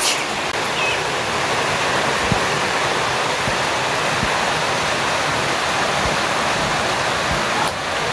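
Steady rushing water, an even hiss with no let-up. There is a brief change in the sound near the end.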